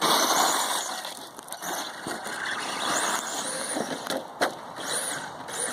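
Three-wheeled RC monster truck running, its motor whine rising in pitch a couple of times over noisy tyre and chassis rattle, loudest at the start.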